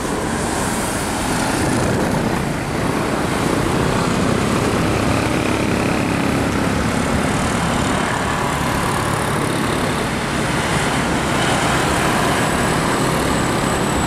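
Road traffic noise: a tour bus drives past close by, followed by a steady stream of cars and motorcycles.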